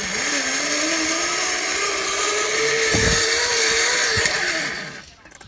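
Zip line trolley rolling along the cable: a steady whirring rumble with a whine that rises slowly in pitch, dying away about five seconds in.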